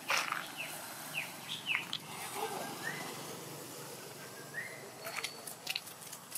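Long-tailed macaques moving through dry leaf litter: crackling rustles at the start and again about five seconds in. Several short high chirps come in between.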